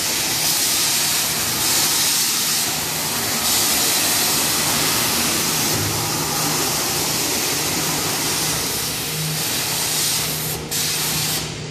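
Biplane carousel ride running, with a loud steady hiss of air over a faint low hum; the hiss dips briefly twice near the end.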